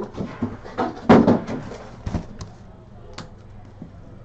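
Cardboard hobby boxes of trading cards being taken out and moved about: a run of knocks and cardboard scrapes, the loudest about a second in, then a few lighter taps.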